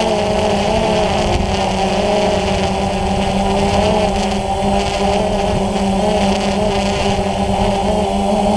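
DJI Phantom FC40 quadcopter's four motors and DJI 9450 propellers humming steadily, picked up by the GoPro mounted on the drone, with several tones that shift slightly in pitch as the motors adjust speed. Wind rumbles on the microphone underneath.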